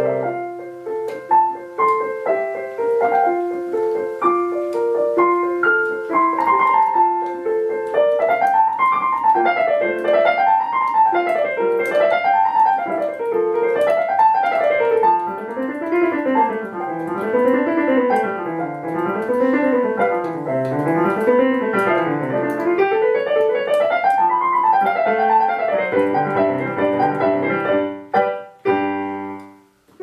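Background piano music: a solo piano playing, with runs of quickly rising and falling notes through the middle, then a few chords before it briefly drops away near the end.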